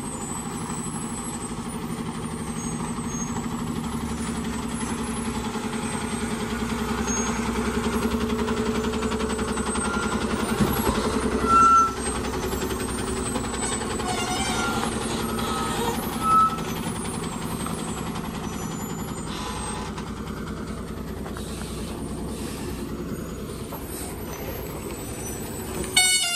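Diesel engine of a heavily loaded goods truck running steadily as it works slowly around a hairpin bend, growing louder as it passes close by. Two short, loud sounds break in about halfway through and a few seconds later. A horn sounds right at the end.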